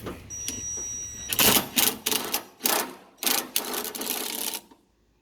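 Ratchet wrench clicking in a series of quick strokes, about six bursts of rapid clicks over three seconds, as it works a door-hinge bolt.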